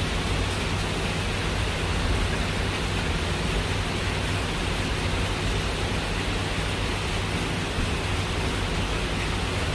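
Heavy rain falling steadily, a dense even hiss with no thunderclap.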